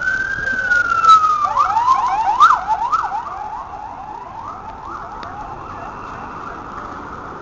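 Emergency vehicle siren: a long wail that slowly falls, switching about a second and a half in to a fast yelp that fades away over the next couple of seconds, leaving steady street noise.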